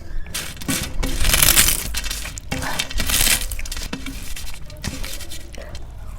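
Close-up eating sounds: two loud crunching bites of crisp food, with smaller clicks and chewing between them.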